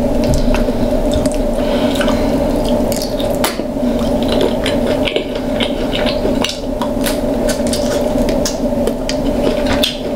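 Close-miked wet eating sounds of a buttery seafood boil being eaten by hand: squishing, smacking and sucking, with frequent sharp little clicks. A steady low hum runs underneath.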